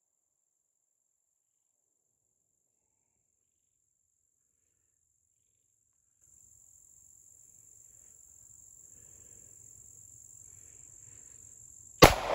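Steady high-pitched drone of insects, growing louder about six seconds in, then a single sharp shot from an FN FNP-9 9mm pistol near the end, its report dying away.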